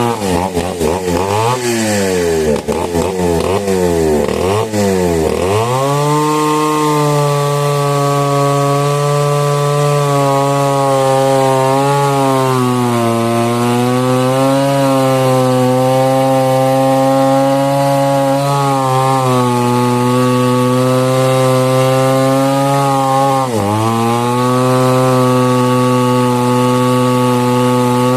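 Two-stroke chainsaw revved up and down several times, then held at high speed and cutting through mahogany wood, its pitch sagging and recovering under the load. About 23 seconds in, the engine drops sharply and picks up again.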